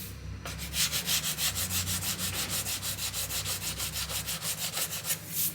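180-grit sandpaper scrubbing the painted pillar of a car in quick, even back-and-forth strokes, several a second, starting about half a second in.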